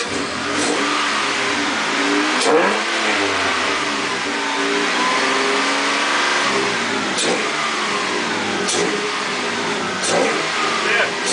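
1999 Toyota Tacoma engine running and being revved up and down several times after Sea Foam was added to its oil and fuel, with a few short sharp clicks.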